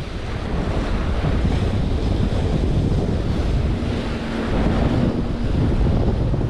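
Wind buffeting the microphone over water rushing and splashing along the hull of a J/120 racing sailboat under sail.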